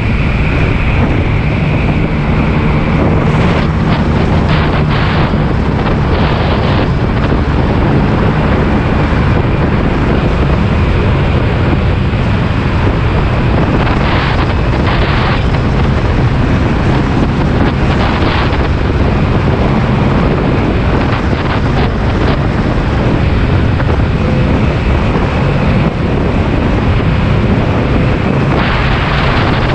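Wind rushing over the microphone of a moving scooter, mixed with the steady hum of a Honda PCX's single-cylinder engine and road noise. Short swells of louder hiss come a few times, about 3 to 7 seconds in, around 14 and 18 seconds, and near the end.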